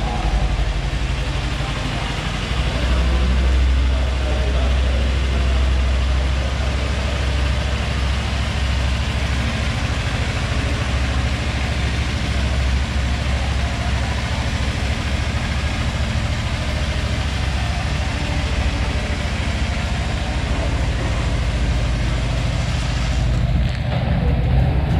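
An engine idling steadily, with a constant low hum.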